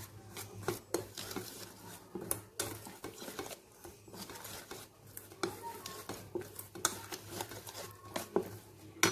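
Wire whisk stirring flour into wet batter in a stainless steel bowl, clinking and scraping against the metal in quick, irregular strokes. The loudest clink comes near the end.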